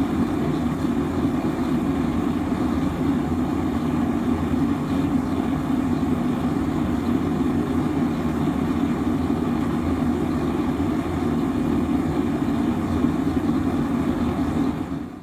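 Homemade propane gas forge burner running, a loud, steady, low rushing noise that stops abruptly at the very end.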